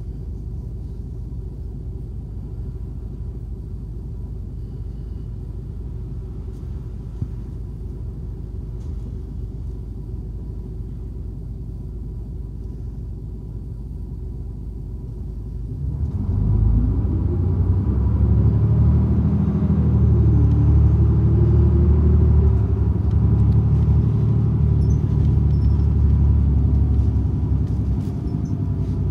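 City bus engine heard from inside the cabin, idling with a steady low rumble. About sixteen seconds in it pulls away and grows louder, the engine note rising, dipping at a gear change and climbing again.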